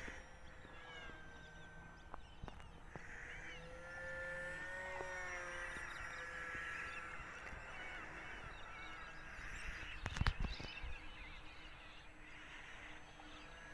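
Faint whine of a UMX Cessna 182 RC model plane's small electric motor and propeller, its pitch drifting slowly up and down as it flies. A brief low rumble comes about ten seconds in.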